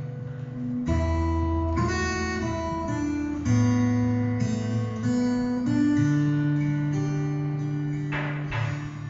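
Acoustic guitar music: held chords that change about once a second, with a strummed chord near the end.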